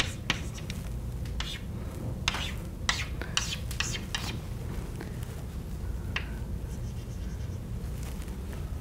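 Chalk scratching on a blackboard in a quick run of short strokes as lines are hatched inside a drawn circle. The strokes are dense for about four seconds, with one more about six seconds in, over a steady low room hum.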